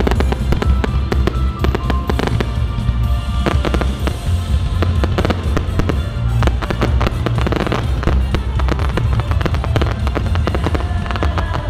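Fireworks display: a rapid, continuous run of bangs and crackles, many per second, over loud music with a heavy bass.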